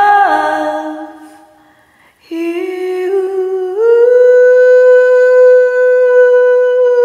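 A woman humming long wordless notes: the first slides down and fades out about two seconds in, then after a short break a new note starts, steps up a little over a second later and is held steadily.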